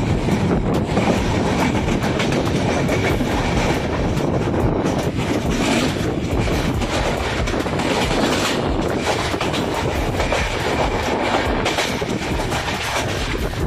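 Passenger train with LHB coaches running: a steady rumble with many sharp clicks as the wheels cross rail joints.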